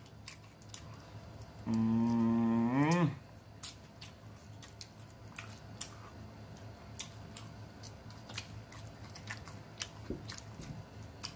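A man's long hummed "mmm" of enjoyment while eating, about two seconds in, held on one low note and rising in pitch at the end. Around it, lip-smacking, chewing and small clicks from handling fried chicken wings.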